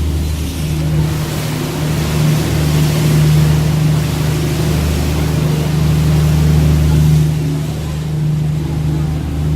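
Steady low engine drone of a sightseeing river boat under way, with a rushing hiss that swells in the middle and eases near the end.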